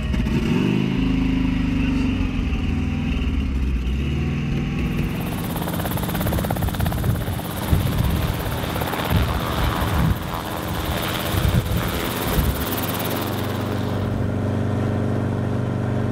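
Enstrom helicopter's engine and rotor running as it lifts off and climbs. The pitch sweeps in the first few seconds, and the sound settles into a steadier drone near the end.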